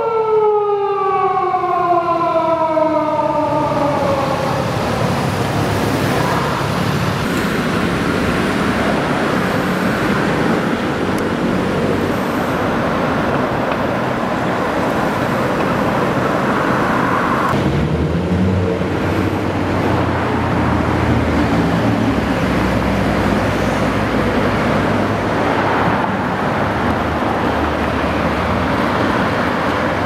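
A Japanese police patrol car's electronic siren wails, falling steadily in pitch and fading out over the first few seconds. Then comes a steady din of city traffic, engines and tyres, with a heavier engine rumble from about halfway.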